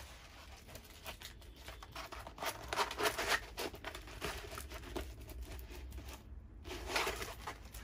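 Clear plastic wrapping and a rolled diamond-painting canvas rustling and crinkling as they are handled and unrolled, loudest about three seconds in and again near the end.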